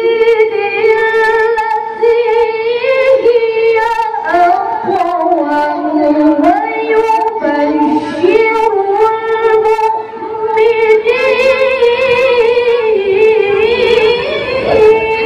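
A woman chanting the Quran in melodic tilawah style into a handheld microphone. Her high voice holds long, ornamented notes, with a few short breaks for breath.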